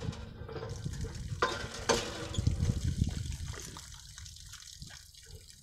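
Water sloshing and splashing in a hand pump's concrete basin as a water buffalo drinks from it, with two knocks about a second and a half and two seconds in. The water sound fades toward the end.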